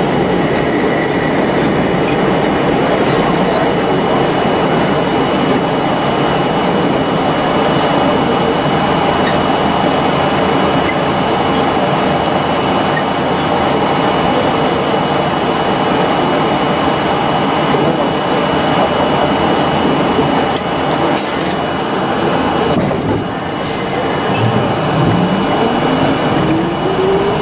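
New York City subway noise: a steady loud rumble and hiss of trains at the platform, with another train moving along the next track at the start. Two short hisses come a few seconds apart, then near the end the train's traction motors start a rising whine as it pulls out.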